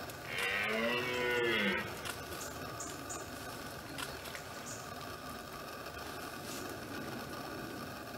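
Red deer stag giving a single rutting roar, about a second and a half long, rising and then falling in pitch.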